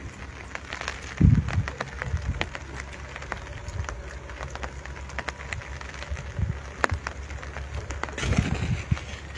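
Gentle rain falling, with many scattered drops ticking close by over a soft steady hiss. Brief low rumbles come through on the microphone about a second in and again near the end.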